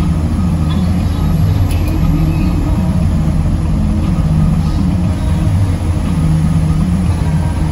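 Tow truck driving at steady speed, heard from inside the cab: a continuous low engine rumble with a wavering engine note under the road noise.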